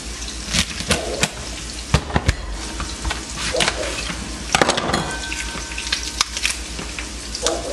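Onions frying in a pan, a steady sizzle, under irregular sharp cracks and knocks as a kitchen knife cuts through a lobster's shell on a cutting board and the shell is broken apart by hand.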